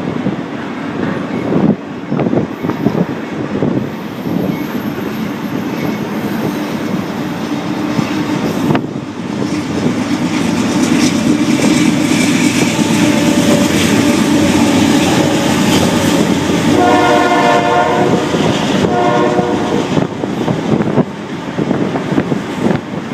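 Freight train rolling past, wheels clacking over the rail joints, louder through the middle. Past the midpoint a diesel locomotive's air horn sounds twice, a longer blast then a short one.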